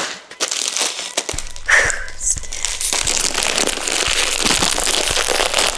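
Crinkling and rustling of a small crisp packet being handled and pulled open at the top, a dense crackling that carries on throughout.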